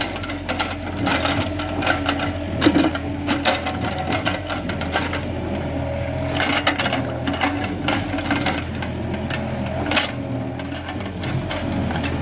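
Excavator diesel engine running steadily while its bucket scrapes and knocks against soil and stones, giving frequent short clanks and clatters over the engine hum.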